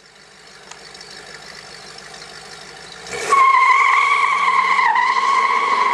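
1968 Shelby Mustang GT500 with its 428 V8 pulling away hard. The engine builds for about three seconds, then the tyres break into a loud, steady high squeal that wavers briefly once while the engine note climbs slowly beneath it.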